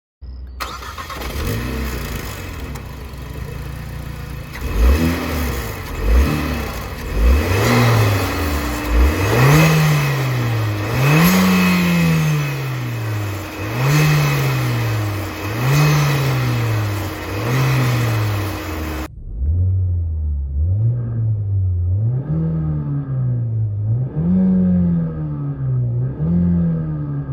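Renault Mégane R.S. 300's 1.8-litre turbocharged four-cylinder engine idling, then revved repeatedly while standing. A few sharp blips come about five seconds in, then a steady series of revs about every two seconds, each rising quickly and falling back slowly. The sound turns duller about two-thirds of the way through.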